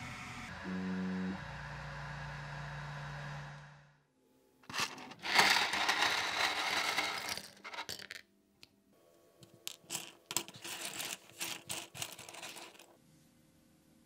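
A 3D printer's motors hum steadily, with a short burst of tones about a second in. After a brief gap comes a loud clatter of 3D-printed plastic parts tipped out of a container onto a cutting mat, followed by scattered clicks as the parts are pushed around by hand.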